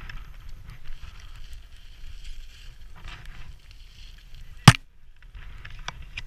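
Rappel rope, harness gear and boots scraping against snow and rock in short hissy patches, over a low wind rumble on the microphone. A single sharp, loud knock comes about four and a half seconds in.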